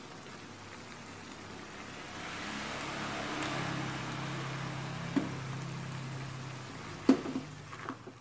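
Coconut-milk fish filling simmering in an aluminium wok, under a low engine hum that swells over a few seconds and fades. A few sharp clicks or knocks near the end, the loudest just after the hum fades.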